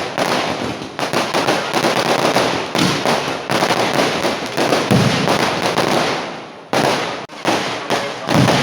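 Kerala festival fireworks barrage (vedikettu): a rapid, dense volley of firecracker and firework bangs running together into an almost continuous crackle. It thins briefly about seven seconds in, then picks up again with more bangs.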